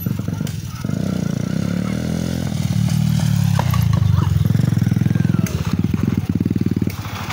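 Small motorcycle engine running close by, its pitch rising as it speeds up about a second in, then running steadily and easing off near the end.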